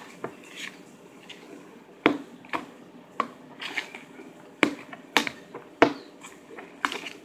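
A spoon stirring a thick white slime mixture in a plastic bowl, knocking against the bowl several times at irregular intervals.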